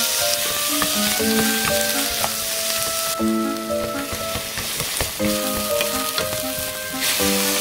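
Shrimp and garlic scapes sizzling as they are stir-fried in a hot pan. A light background melody of short notes plays over it.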